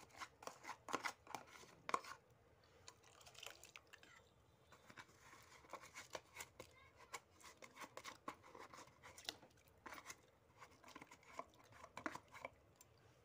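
A plastic packet crinkling and crackling as rice is tipped from it into a pot of boiling sugarcane juice: quick irregular crackles coming in clusters with quieter gaps between them.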